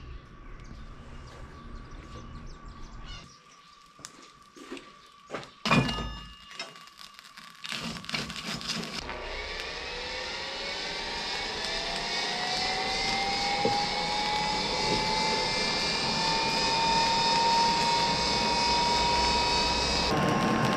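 A few scattered knocks and one sharp bang. Then a motor-like whine that climbs slowly and steadily in pitch and grows louder, over a steady rushing noise.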